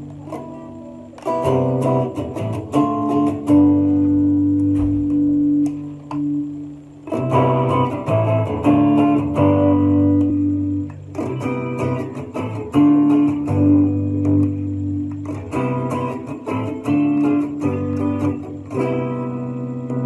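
Electric guitar with high-output hotrail humbuckers, played in short phrases of held chords and single notes that ring out between brief pauses. Each phrase is heard on a different pickup setting: the middle and neck coils out of phase, the full neck humbucker, and the neck humbucker split to its north coil.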